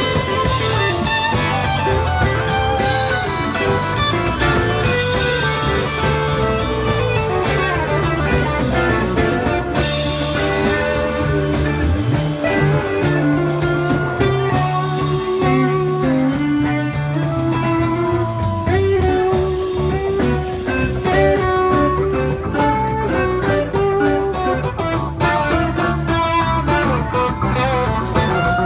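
Live rock band playing electric guitars, electric bass and a drum kit, continuously and loud.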